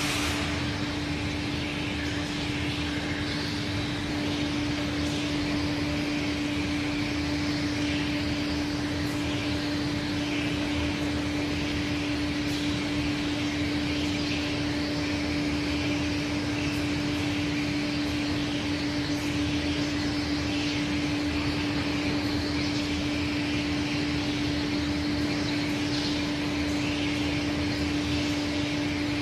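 Aschersleben SZ 2000x1500x9000 guideway grinding machine running with its tilted grinding head at work: a steady hum under a constant hiss of the wheel grinding an angled slideway on a machine-bed casting.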